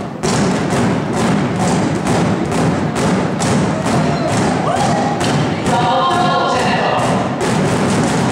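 Many drumsticks beating in unison on inflated exercise balls, a steady rhythmic thudding over pop music. A voice sings or calls out about six seconds in.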